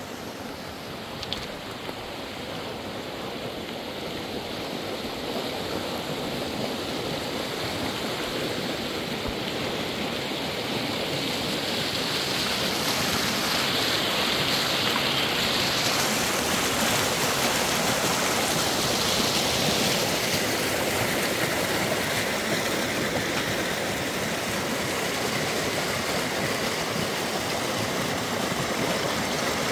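Steady rush of flowing water, growing louder over the first half and then holding steady.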